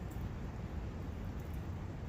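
A brook's water running steadily, an even rushing noise, with a few faint high ticks.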